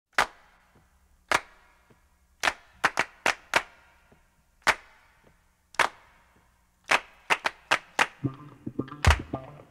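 Opening of a song on the soundtrack: sharp percussive hits, claps or snaps, land about once a second with a quick run of four in the middle. About eight seconds in, a bass line and fuller beat come in.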